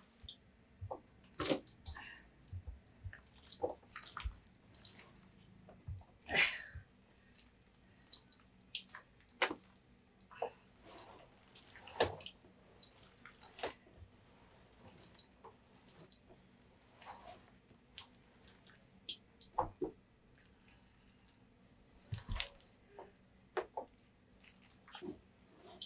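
Rubber-gloved hands scooping and turning paste-coated kimchi vegetables in a plastic tub and a steel bowl: irregular soft wet squelches and rustles with occasional small clicks.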